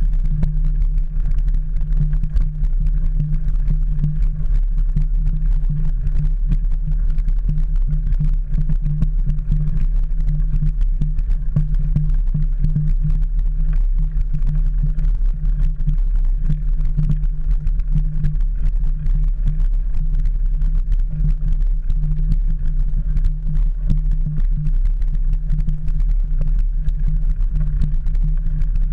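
Mountain bike rolling over a gravel and dirt trail, heard through a camera clamped to the handlebars: a steady low rumble with constant small rattles and clicks as the bike and mount shake over the stones.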